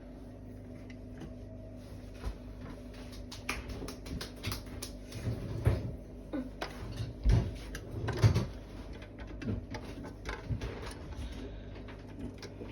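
Irregular clicks, taps and knocks of kitchen utensils against a mixing bowl as ingredients are spooned in and the bowl is handled, with a few heavier thumps in the middle, over a steady low hum.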